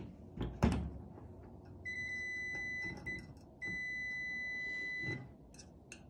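Two knocks as a microwave magnetron is handled on the table, then a Fieldpiece clamp meter's continuity beeper sounds twice, a steady high beep of about a second and then about a second and a half. The beep comes as the probes bridge the magnetron's two filament terminals, showing the filament has continuity: a pass.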